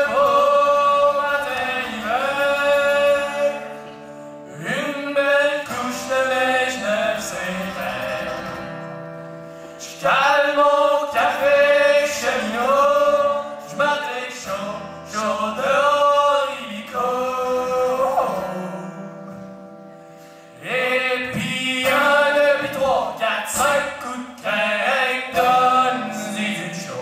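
Two men singing together, backed by a strummed acoustic guitar, in a bluegrass-style song sung in phrases with short breaks between lines.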